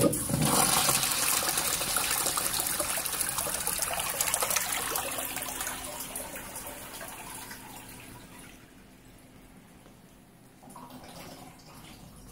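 Crane Cromwell urinal flushing: a sudden rush of water that runs strong for about five seconds, then tapers off over the next few.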